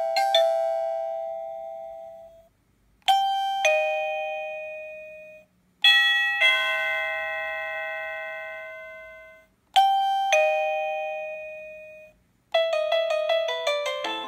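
Esonstyle wireless doorbell's plug-in receiver playing its chime tunes: four two-note ding-dong chimes, each a higher note then a lower one fading over about two seconds, the third fuller than the others. Near the end a longer, faster tune of many notes begins.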